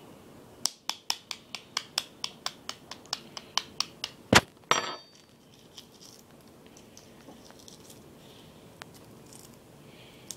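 Eggshell being tapped quickly against a hard surface to crack it, about sixteen light, even taps at four to five a second, then one loud knock followed by a short noisy burst. Faint small crackles follow.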